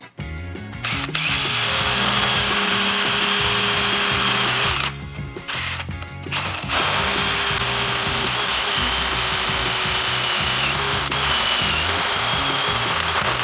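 Electric power tool working wood, running steadily in two long runs with a short pause about five seconds in, over background music with a steady beat.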